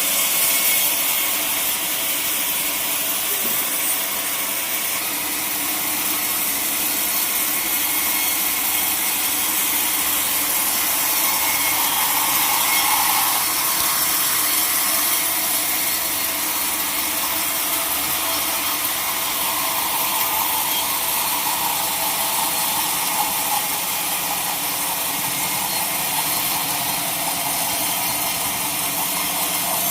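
Sawmill saw running steadily through a large log, a continuous high cutting noise with a faint steady machine hum underneath.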